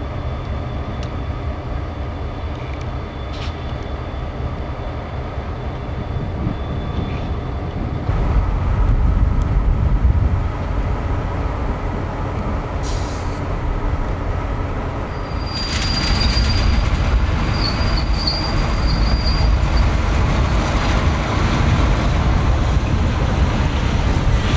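CN GP38-2 diesel locomotives and their slug units moving on yard track: a steady low diesel rumble that grows louder about a third of the way in. In the last third a high, thin wheel squeal comes and goes over it.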